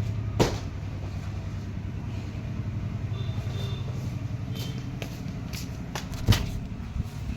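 Motor vehicle running with a steady low engine hum, with two sharp knocks, one shortly after the start and a louder one near the end.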